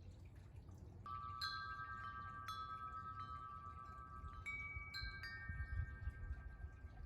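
Wind chimes ringing: several metal tones struck one after another, beginning about a second in, each ringing on and overlapping the next.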